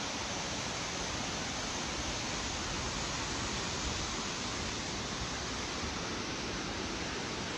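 Steady, even rushing of water, an unbroken hiss with no change in level.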